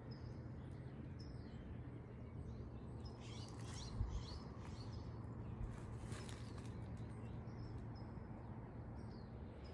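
Small birds chirping and calling in short high notes, busiest in two bursts mid-way, over a steady low background rumble. A single brief thump about four seconds in.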